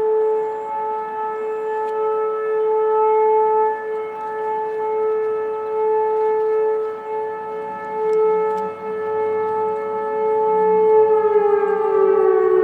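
Vortex R4 tornado warning siren sounding a steady tone that swells and fades in loudness every second or so. Near the end its pitch starts to slide down as it winds down.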